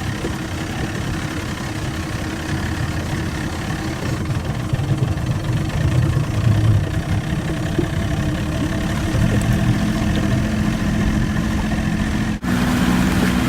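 A boat's motor running steadily at low speed, with a low rumble and a steady hum, briefly cutting out near the end.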